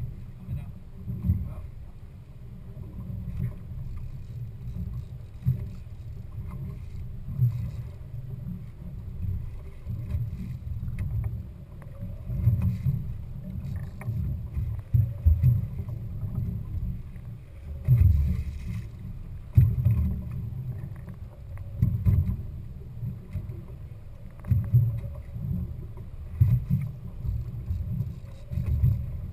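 Low, uneven rumble of a fishing boat at sea, swelling and dropping every second or two.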